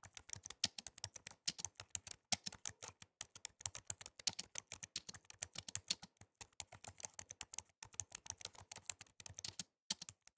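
Keyboard typing sound effect: rapid, irregular key clicks that keep pace with text being typed out on screen. The clicks stop just before the end.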